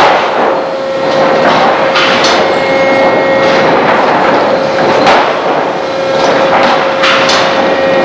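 Sawmill machinery running loud with a steady whine, broken by several sharp clanks and knocks of lumber handling, two of them close together near the end.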